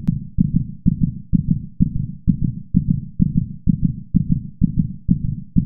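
Low, heavy thumping in an even beat of about two a second, like a heartbeat, with no higher sound over it.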